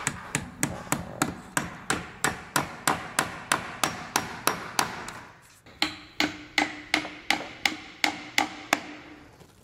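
Hand hammer driving nails, steady blows about three a second. There is a short pause about five and a half seconds in, then a second run of blows with a faint ringing tone under them.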